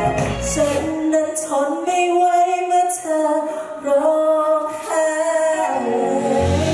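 Live pop band: the male lead vocalist sings high, held phrases over sparse backing, with the bass and drums dropped out. The full band comes back in near the end.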